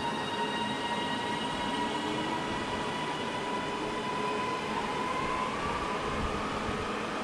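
Northern Class 331 electric multiple unit pulling slowly into the platform, its electric drive giving a steady high whine of several tones over the running noise; the main tone rises slightly about five seconds in.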